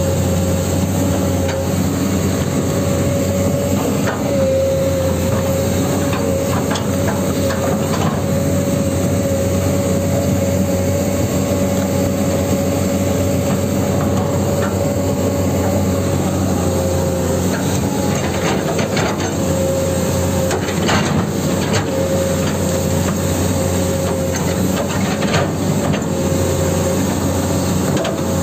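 Huina 1594 RC hydraulic excavator running: a steady whine from its hydraulic pump, with scattered clicks and scrapes as its metal tracks and bucket work in sand.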